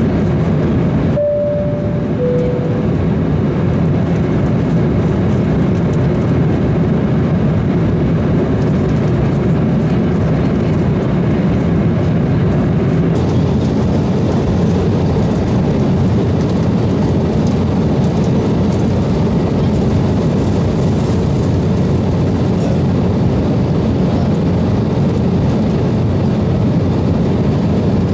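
Steady engine and rushing-air noise inside the cabin of an Embraer 190 jet airliner in flight. About a second in, a two-note cabin chime sounds, the second note lower.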